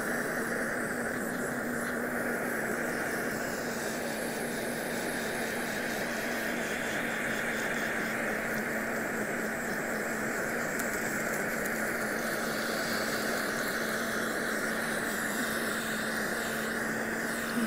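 Kitchen torch burning with a steady hiss as its flame is played over the sugar topping of a crème brûlée, melting and caramelizing it.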